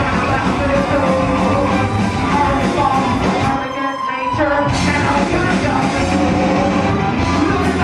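Rock band playing live at full volume. About halfway through the band drops out for about a second, then the full band comes back in.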